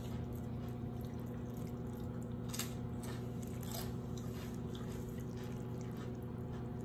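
Meat juices poured in a thin stream from a glass measuring cup onto pulled pork in a foil pan, dripping softly onto the meat with a few faint ticks. A steady low hum runs underneath.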